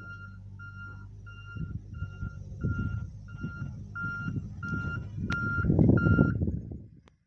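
Truck's reversing alarm beeping at an even pace, about three beeps every two seconds, over a steady engine hum. Wind buffets the microphone with growing low rumbles that are loudest near the end, then the sound cuts off.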